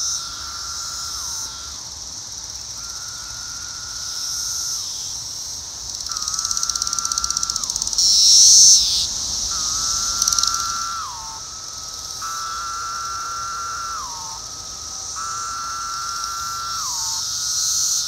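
Brood X periodical cicadas (Magicicada) calling: a steady high-pitched chorus drone that swells and fades, louder for a moment about eight seconds in. Over it, single cicadas give long calls about every two seconds, each holding one pitch and dropping at the end.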